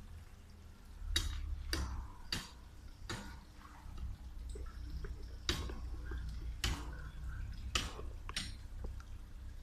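Tree branches being chopped during pruning: about eight sharp knocks of a blade striking wood at uneven intervals, over a low steady rumble.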